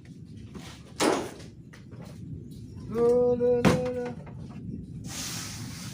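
A sharp knock on the refrigerator's casing as it is being taken apart, then a drawn-out wordless vocal sound from the man with a click in the middle of it, and a short hiss near the end.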